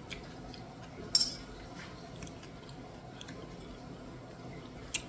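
Quiet chewing as a person tastes a mouthful of homemade salad, with a sharp click about a second in and a smaller one near the end.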